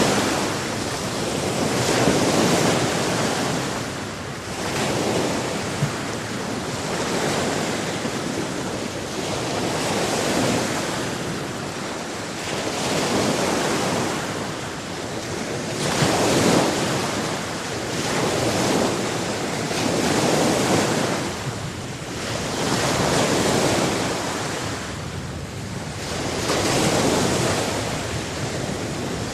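Sea surf: waves breaking and washing in, swelling and falling back every few seconds, with some wind noise on the microphone.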